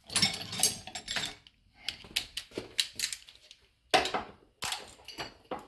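Hand tools and metal engine parts clinking and rattling as a timing chain guide is worked off: a run of irregular sharp metallic clinks, the loudest about a quarter second in.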